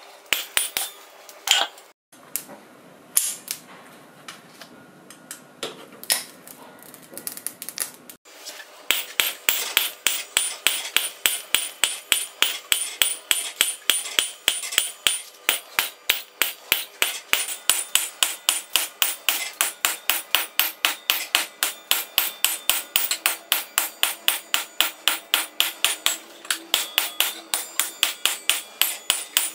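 Hand hammer striking a piece of suspension coil spring steel on an anvil while it is being forged: a few scattered ringing blows at first, then, after about eight seconds, a steady run of strikes about three a second.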